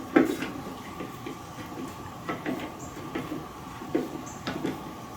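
Small irregular clicks and light knocks from a hand screwdriver as a Phillips screw is turned into the grill lid's plastic handle.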